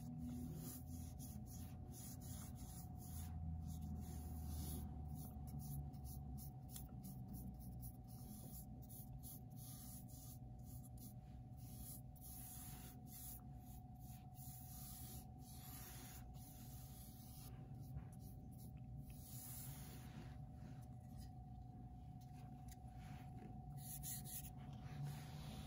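Faint scratchy strokes of a paintbrush dragging paint along the side edge of a canvas, over a steady faint hum.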